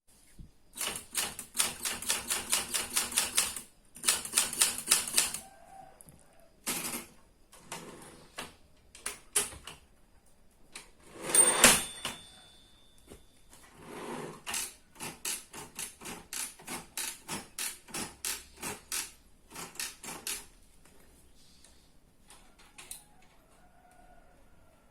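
Rusty old manual typewriter being typed on: runs of rapid key strikes clacking in bursts with pauses between. About halfway through comes a louder clatter with a brief ringing tone.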